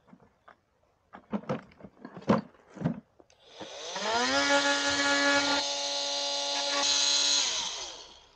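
A few sharp clicks from plastic pieces being handled. Then a small cordless power tool spins up with a rising whine and runs for about four seconds cutting a notch into a plastic bucket rim, and winds down near the end.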